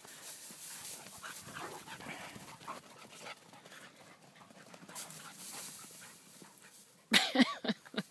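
Dogs panting and rustling through loose hay as they play rough. About seven seconds in, a sudden loud burst of dog vocalising lasts about a second.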